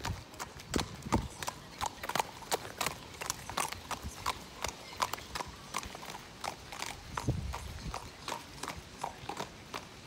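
A horse's hooves clip-clopping on wet asphalt as it is led at a walk, in an even rhythm of about three or four hoofbeats a second. Two short low rumbles come in, about a second in and again around seven seconds in.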